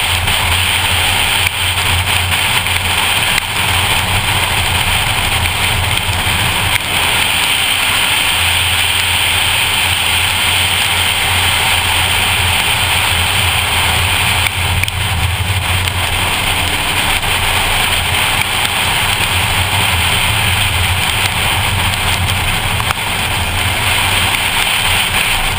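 2014 Ford Focus ST's turbocharged 2.0-litre four-cylinder engine running steadily under load at track speed, heard from inside the cabin, its note dipping briefly a few times. A steady hiss of rain and tyre spray off the wet track runs under it.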